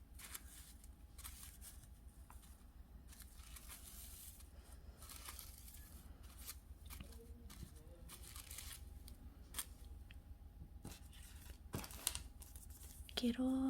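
Faint rustling and tearing of packaging being handled and opened, with scattered crinkles and a few sharp clicks.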